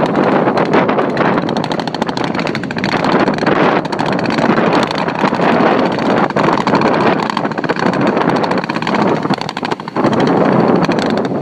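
Loud steady noise of wind buffeting the microphone and surf breaking on the beach, with scattered faint cracks through it.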